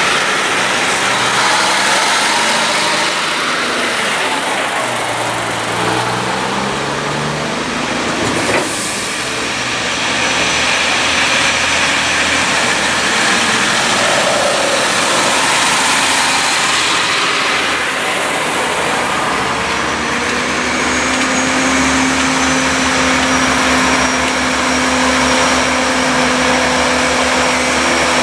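A steady stream of heavy highway traffic passing close by: diesel trucks, road trains among them, and cars, with engine noise and tyre roar. In the last third a truck's engine note holds steady.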